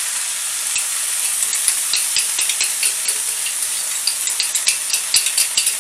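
Stir fry of beef, chicken, bacon, onion and peppers sizzling in a hot pan, with a steady hiss and, from about a second in, quick irregular crackles and scrapes as it is stirred.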